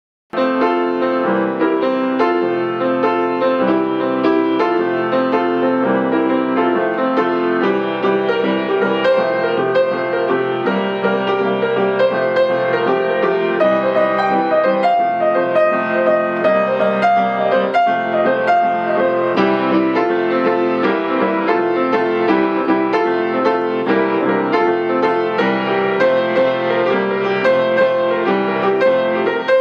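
Young Chang piano played with both hands: a continuous flow of many notes and chords at an even loudness. It cuts in sharply from silence right at the start.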